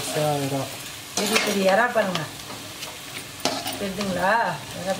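Perforated metal spoon stirring and scraping prawn and drumstick gravy in a metal kadai as it fries and sizzles in oil, with wavering tones about a second in and again near the end.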